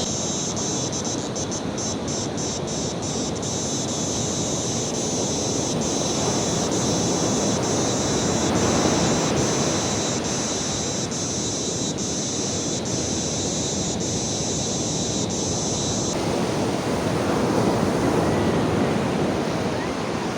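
Surf washing on a beach, a steady rush of breaking waves that swells twice, with some wind on the microphone. A steady high-pitched hiss with faint regular ticks runs alongside and cuts off suddenly about sixteen seconds in.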